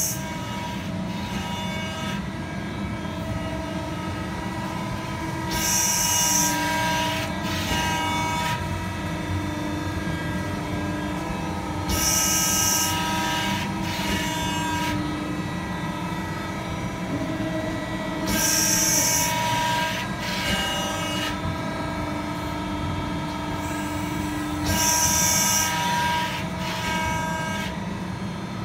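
A CT8 CNC hydraulic press brake running: a steady hum and whine from its hydraulic system. About every six and a half seconds a hissing surge about a second long comes, followed a couple of seconds later by a shorter one, four times over.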